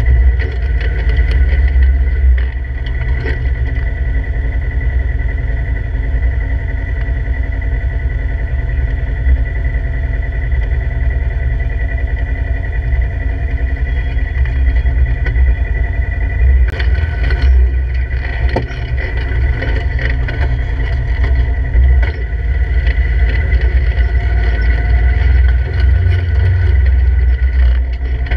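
Polaris RZR 1000's parallel-twin engine running at low speed as the side-by-side crawls up over rock, heard from inside the open cab. A few sharp knocks and scrapes from the rocks come past the halfway point.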